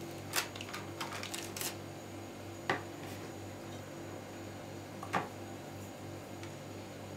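Grated apple pressed and spread by hand in a parchment-lined multicooker bowl: soft handling rustles of the baking paper and apple, with a few light clicks, over a steady low hum.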